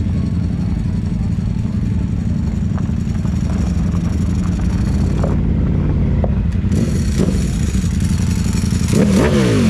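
Motorcycle and car engines running in a steady low rumble, with a sport bike's engine revving up and back down near the end as two sport bikes ride past.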